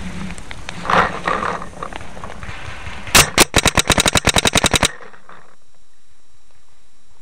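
Paintball marker firing a rapid burst, about fifteen sharp pops in under two seconds, starting about three seconds in. A short scuffing noise comes about a second in.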